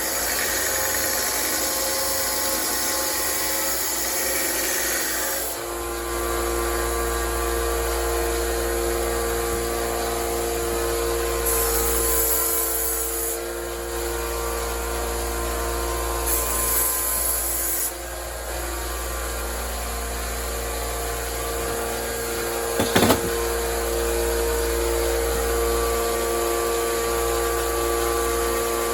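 Electric sander running steadily as it grinds the steel rails of a STIHL chainsaw bar, dressing out wear and burrs. The grinding turns harsher twice in the middle, and there is a sharp knock about two-thirds through.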